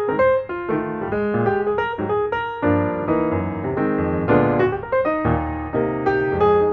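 Background music: solo piano playing a gentle melody with chords, notes struck in a steady flowing rhythm.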